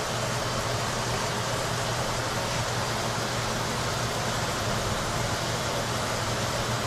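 Steady low hum with an even hiss, the sound of a fan running unchanged.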